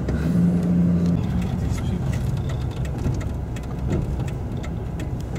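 Pickup truck's engine running, heard from inside the cab, with scattered light clicks.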